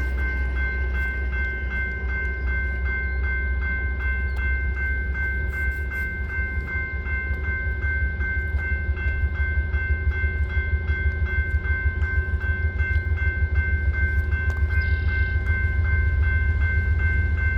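Railroad grade-crossing bell ringing in a steady, even rhythm of about three strokes a second, over the low rumble of a train that grows louder from about six seconds in.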